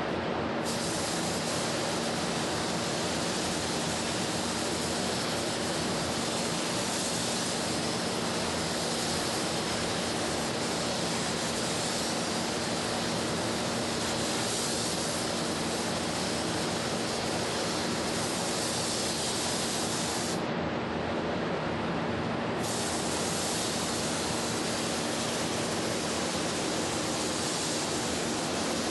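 Air spray gun hissing steadily as it sprays ArmorCoat protective coating, over a steady low hum. The high hiss stops for about two seconds around twenty seconds in, as if the trigger is released, then starts again.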